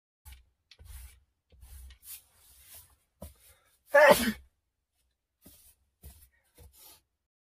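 A person sneezing once, loudly and briefly, about four seconds in, with a few faint short sounds before and after.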